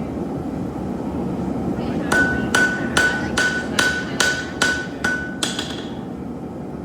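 Blacksmith's hammer striking steel on an anvil, about nine blows at a steady two to three a second, each with a bright metallic ring; the last blow rings at a higher pitch.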